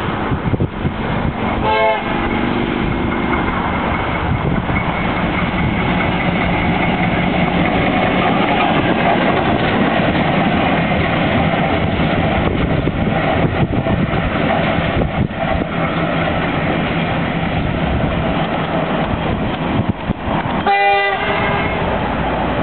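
Victorian Railways Y class diesel-electric shunting locomotive Y171 running past at low speed, its diesel engine steady and loudest as it passes close by in the middle. The horn sounds briefly about two seconds in and again, louder, near the end.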